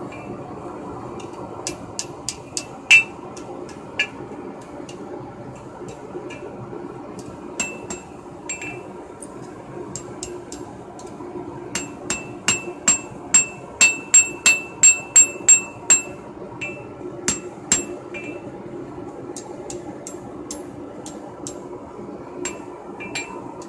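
Hand hammer striking hot steel on an anvil, each blow ringing. The blows come singly and irregularly at first, then in a steady run of about three a second midway, then scattered again, over a steady low hum.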